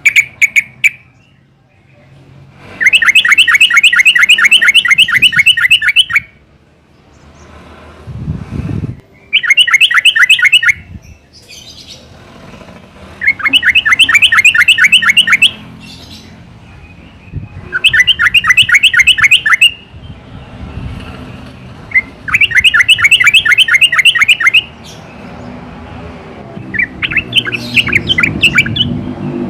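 Yellow-vented bulbul (trucukan) calling in loud bursts of rapid repeated chattering notes, each burst lasting two to three seconds and coming about every four to five seconds; the last burst is fainter.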